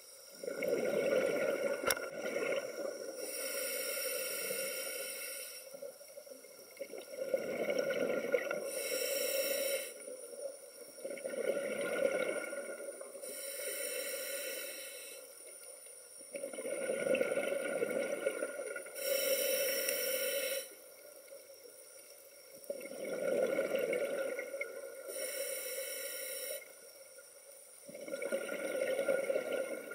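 Scuba diver breathing through a regulator underwater, about five breaths. Each exhale is a rumbling burst of exhaust bubbles, and each inhale is a high hiss from the regulator.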